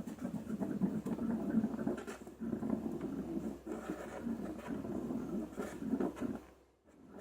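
Slime being squeezed and kneaded by hand, a dense run of small wet crackles and pops that dips briefly near the end.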